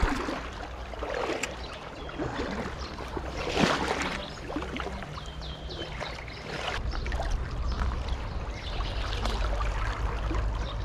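River current flowing and splashing around the legs of a wading angler, with a louder rush about three and a half seconds in and a low rumble that grows stronger from about seven seconds in.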